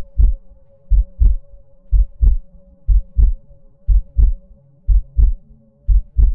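Heartbeat sound effect: a double thump, lub-dub, about once a second, over a faint steady drone.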